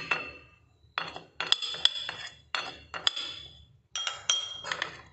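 A steel spoon clinking against a glass bowl and china dishes while spices are added to a marinade: several bursts of sharp, ringing clinks with short gaps between them.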